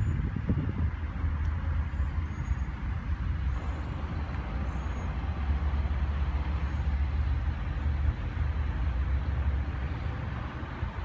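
Steady low rumble of a running vehicle, with a few faint high chirps over it.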